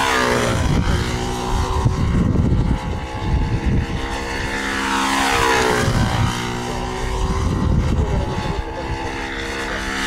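Control-line stunt model airplane's engine running at full power, its pitch dropping sharply each time the plane sweeps past on its circle, about once every five seconds.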